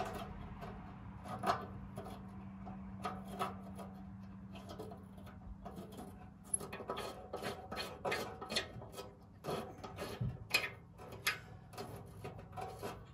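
Hand wrench working a nut on the rear lift of a 1966 Cub Cadet 102: irregular metal clicks and scraping, coming thicker in the second half.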